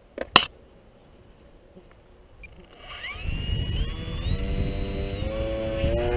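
Two sharp knocks near the start as the foam model is handled, then about three seconds in the electric motor and propeller of a scratch-built foam RC eagle start up with a whine that steps higher several times as the throttle is opened for launch.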